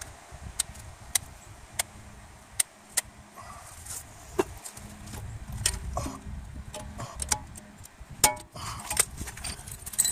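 Light metallic clicks and clinks of snap-ring pliers and a steel snap ring being fitted into the groove of a steering knuckle's wheel-bearing bore. The clicks come at fairly even spacing at first and more irregularly later, over a faint low hum.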